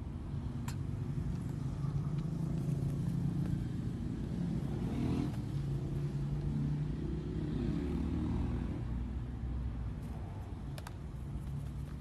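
A motor vehicle's engine running steadily at a low pitch, rising and falling a little around the middle. A few faint clicks sound near the start and near the end.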